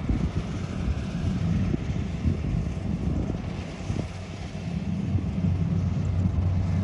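Combine harvester engine running steadily as it cuts rice, heard from across the field, with wind buffeting the microphone; the hum turns smoother and steadier about five seconds in.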